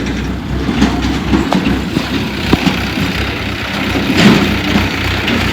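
Heavy diesel machinery running with a steady low rumble. Sharp knocks come now and then, and a louder rush of noise swells about four seconds in.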